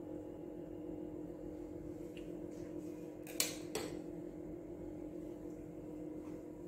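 Two quick clinks of kitchenware about half a second apart, a little past the middle, over a steady low hum.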